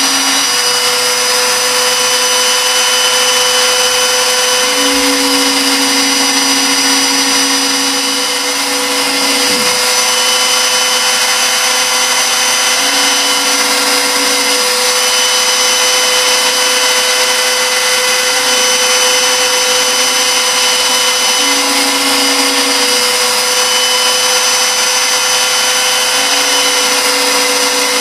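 3-axis CNC milling machine cutting aluminium 6061 with an end mill while contouring: a steady high whine over a constant cutting hiss. A lower tone comes and goes every few seconds, with a brief drop in pitch about nine seconds in.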